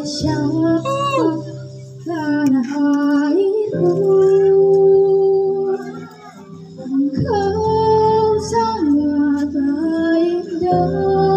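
A young girl singing a melody into a hand microphone over musical accompaniment, holding long notes that slide between pitches, with a short breath pause about halfway through.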